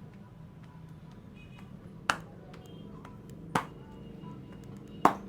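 Three sharp hand strikes of a barber's head massage, about a second and a half apart.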